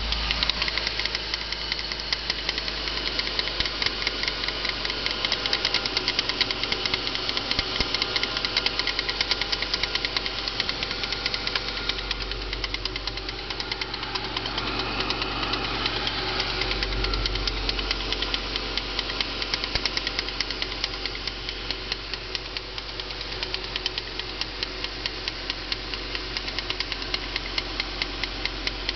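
VAZ 2112's 1.6-litre four-cylinder engine running steadily with a fast, regular knock in time with the engine, coming from around the timing-belt cover; the owner has not found the cause.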